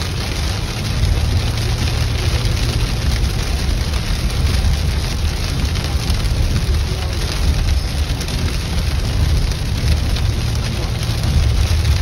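Heavy rain on a moving car and the steady low rumble of tyres on a wet highway, heard from inside the cabin.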